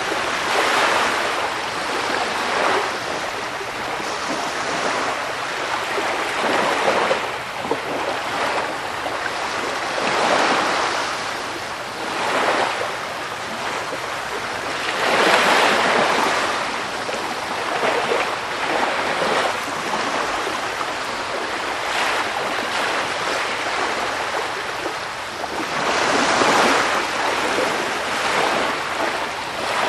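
Sea surf: waves breaking and washing in as a continuous rush that swells and falls back every few seconds.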